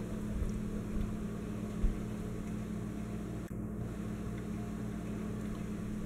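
Encon Casanova ceiling fan running, its motor humming steadily with a haze of air noise, and a brief low thump about two seconds in.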